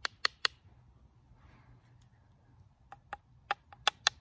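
Sharp wooden taps: a cattail hand-drill spindle knocking on a cottonwood fireboard by the notch to free the friction-fire coal. Three quick taps come first, then about six more from about three seconds in.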